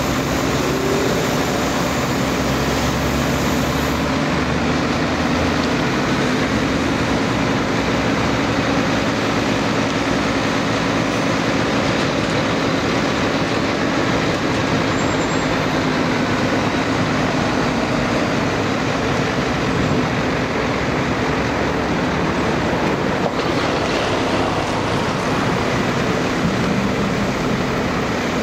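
Heavy diesel machinery running steadily: an asphalt paver laying asphalt while a tipper truck, bed raised, feeds it. A continuous loud engine hum.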